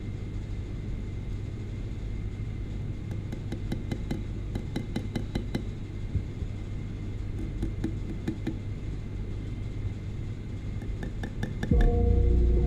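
Quick, light metallic clicks and ticks of stone-setting work on a diamond ring held in an engraving ball vise, in clusters through the middle and again just before the end, over a steady low hum. Music comes in near the end.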